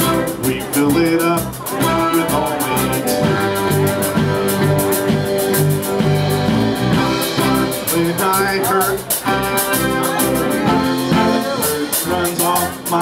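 Live band playing an instrumental passage on keyboard, guitars and drums, with a steady beat.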